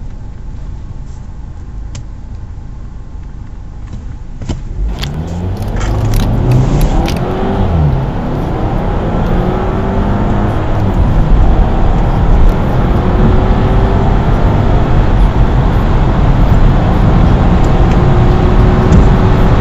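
Two cars' engines, the Mercedes E280 CDI's V6 diesel and the Audi A4's 2.0 TFSI turbo four, accelerating at full throttle from a standstill, heard overlaid from inside the cabins. They idle at first. About five seconds in there are a few clicks, and the engine notes start to climb, drop back at the gear changes and climb again, growing louder.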